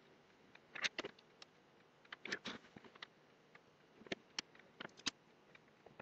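Faint, scattered small clicks and rustles of hands handling thin wires, heat shrink and a soldering iron at a soldering bench, including the iron being lifted from its coil stand. The clicks come in small clusters about a second in, just after two seconds and between four and five seconds in.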